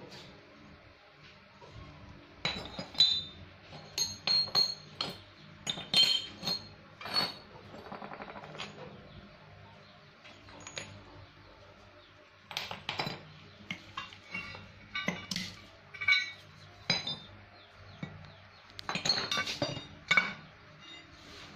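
Pieces of scrap steel plate clinking and clattering as they are picked up, stacked on a heavy round steel block and set down on a concrete floor. The sounds come as irregular sharp metallic clinks with a short ringing, in three busy bunches.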